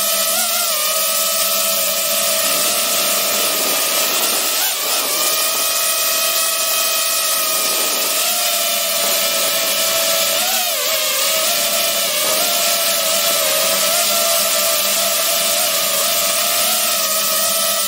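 DJI FPV drone's electric motors and propellers whining steadily, heard close up from a camera mounted on the drone. The pitch wavers briefly about five seconds in and again about ten seconds in.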